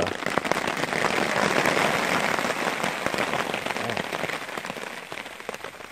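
Heavy rain falling on a tarp overhead: a dense hiss of drops with many small sharp hits, heaviest about two seconds in.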